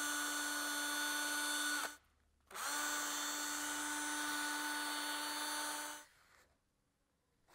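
Makita cordless drill running at a steady speed with a small round cleaning attachment, scouring the bore of a cast-iron pump cover's seat to clean it before reassembly. It stops about two seconds in, starts again half a second later and runs until about six seconds in.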